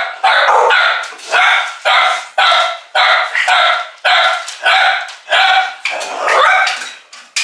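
Dogs barking steadily at a glass back door, about two barks a second, as someone arrives at it. One longer, drawn-out bark near the end.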